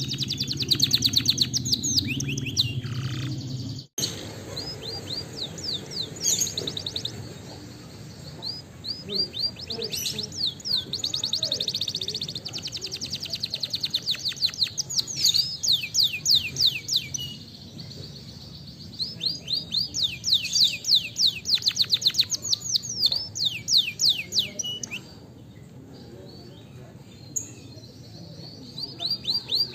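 Canary singing: a long song of rapid trills, each a fast run of repeated falling notes, sung in several phrases with short pauses between. The sound cuts out for an instant about four seconds in.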